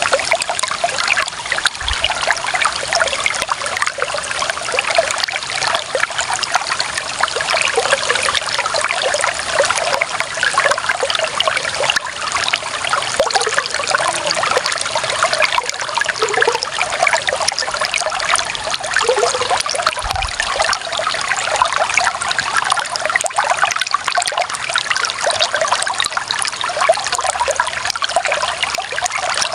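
Clear water running and trickling steadily, a continuous splashing babble with no change in level.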